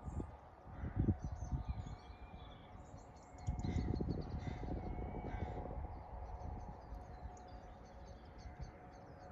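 Birds calling, including harsh cawing calls and a few higher gliding calls, over a low rumble that is loudest from about three and a half to six seconds in.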